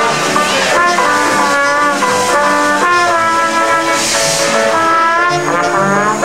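Live jazz band playing a tune, the trombone prominent over a clarinet and the rest of the band.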